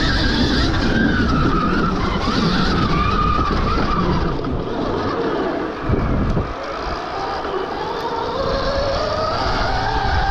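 Stark Varg EX electric dirt bike at speed on a trail: the electric motor's whine gliding up and down with the throttle over a constant rush of wind and tyre noise, with a brief drop in level and a knock about six seconds in.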